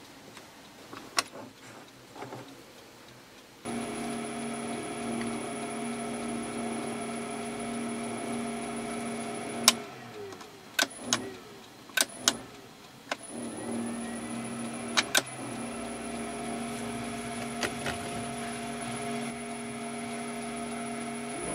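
ТВ16 lathe running with a steady hum and whine while a knurling wheel rolls a pattern into a small steel screw blank. It starts about four seconds in, stops with a click after about six seconds, then a few sharp metallic knocks follow before it starts again and runs on.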